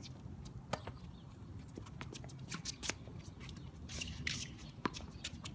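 Tennis rally: sharp pops of rackets striking the ball, a few seconds apart, with smaller ticks between them.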